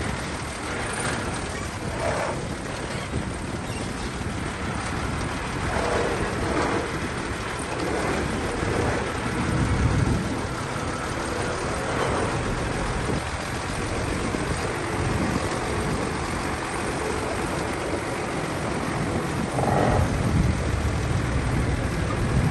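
Bulldozer's diesel engine working steadily, surging louder a few times.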